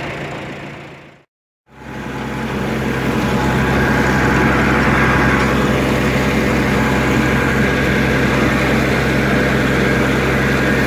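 Engine running steadily with a low hum. It fades out about a second in and cuts to silence for a moment. Then a steady engine sound fades back in and keeps running.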